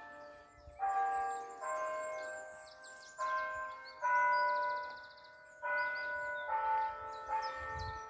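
Church bells ringing a slow run of struck notes of different pitches, about one a second, each note ringing on and fading. Small birds chirp above the bells, with a short high trill about halfway through.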